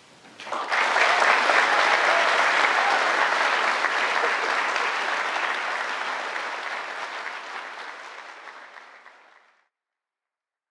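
An audience of schoolchildren applauding. It breaks out about half a second in, then fades away gradually and stops shortly before the end.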